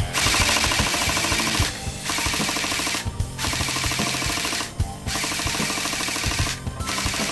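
Airsoft gun firing in rapid full-auto bursts, four bursts with short pauses between them and a fifth starting near the end, through a tracer and smoke silencer. Background music plays underneath.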